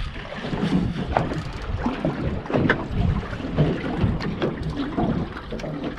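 Wind buffeting the microphone on an open fishing boat, an uneven gusty rumble, with scattered short clicks and knocks from fishing gear being handled.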